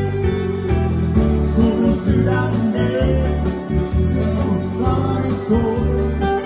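A live band playing a song, with electric guitar, keyboard and saxophone over a steady beat.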